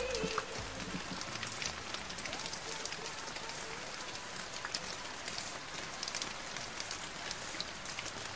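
Steady rain falling on a wet road and leafy shrubs, an even patter with many distinct drop ticks.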